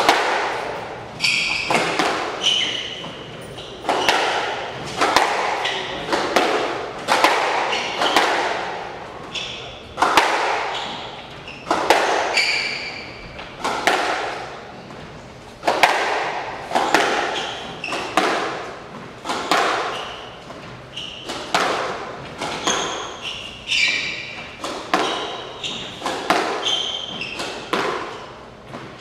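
Squash rally: the ball is struck by the racquets and smacks off the court walls in sharp, echoing hits about once or twice a second. Short high squeaks of shoes on the court floor come in between the hits.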